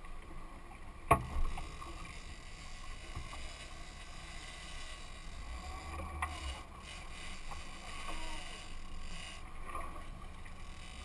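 Wind and sea noise around a small open fishing boat, a steady low rumble. A sharp knock comes about a second in and a smaller one about six seconds in.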